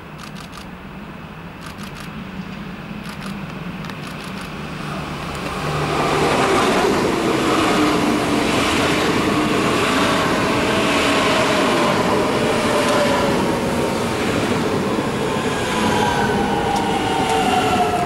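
Regional passenger train approaching and passing along the station platform. The rail noise builds over the first six seconds into a loud, steady rush of wheels on track, with a whine that falls in pitch as the train goes by.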